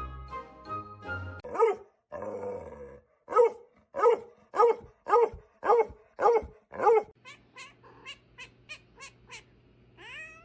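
A dog barking over and over, about two barks a second, after a moment of background music; the barks then give way to a run of quicker, fainter barks.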